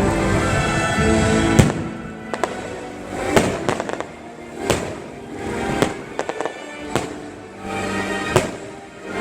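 Fireworks shells bursting in a series of sharp bangs, about eight of them after the first second and a half, over the fireworks show's music playing throughout.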